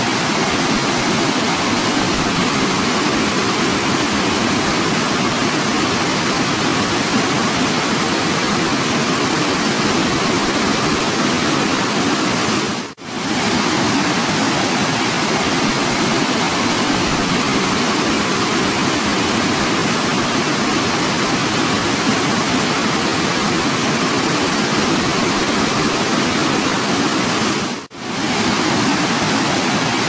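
Steady rushing of a waterfall cascading over rock ledges into a pool. It cuts out briefly twice, where clips are joined.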